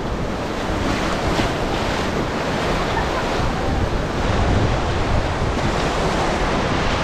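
Whitewater of a river rapid rushing and churning around an inflatable raft, with wind buffeting the microphone; a little louder from about four seconds in.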